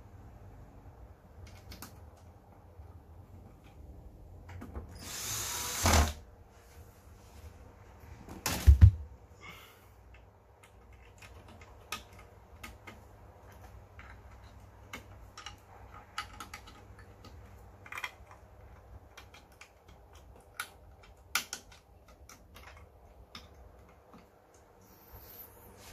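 Cordless drill-driver running once for about a second and a half, rising and stopping sharply as it drives a screw into the TV's metal chassis. A loud knock follows a few seconds later, then scattered small clicks of screws and parts being handled.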